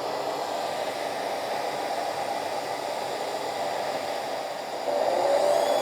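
RC excavator sound module playing a simulated diesel engine through its small speaker, running steadily over the steady air noise of the model's 12-volt cooling fan. The engine sound gets louder about five seconds in as the volume is turned up.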